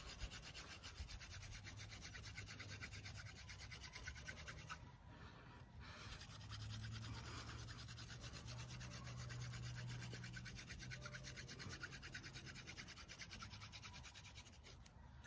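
Cattail hand-drill spindle spun between the palms, grinding into a cottonwood fireboard for a friction fire: a fast, continuous scratchy rubbing, with a brief break about five seconds in.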